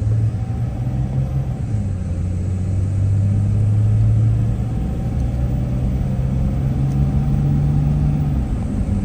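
Mercedes Sprinter 4x4 van driving on the highway: a steady low engine drone with road and tyre noise, the engine's pitch shifting slightly as it picks up speed.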